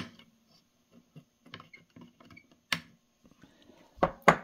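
Diagonal side cutters snipping the excess leads of newly soldered 22 µF capacitors on a subwoofer amplifier circuit board: a couple of sharp single snips a few seconds apart, with faint handling clicks between. Two louder knocks follow close together near the end.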